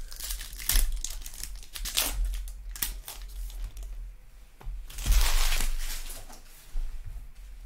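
Foil trading-card pack wrappers crinkling and rustling as packs are handled and torn open. A longer, louder rustle comes about five seconds in.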